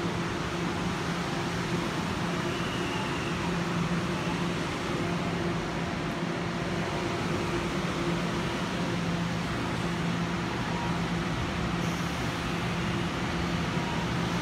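Steady electrical hum and rushing noise of a Taroko Express electric train at a station platform, with a low hum tone and a fainter higher one over an even background rush.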